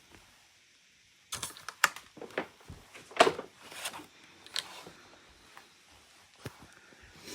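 Handling noises: a quick string of irregular clicks, taps and short rustles, with a few lighter ticks after a short pause.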